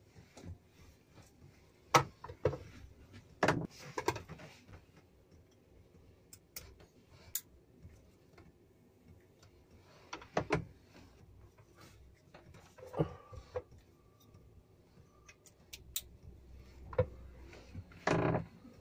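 Scattered sharp clicks and small knocks of electrical cables and plastic wire connectors being handled and pushed together, as solar panel leads are joined into wire junction connectors. The sharpest clicks come about 2 and 3.5 seconds in, with more near the end.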